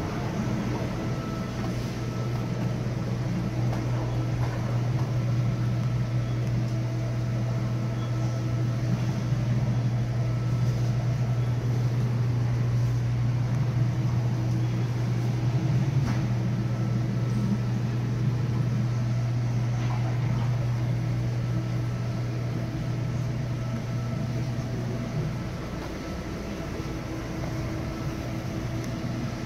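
Steady low machine hum with faint steady higher tones above it, easing off about 25 seconds in.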